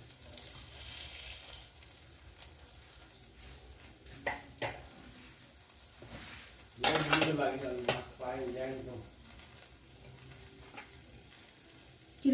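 Paratha frying on a hot iron tawa, oil sizzling as it is spooned onto the bread, strongest in the first second or two. A voice sounds briefly about seven seconds in.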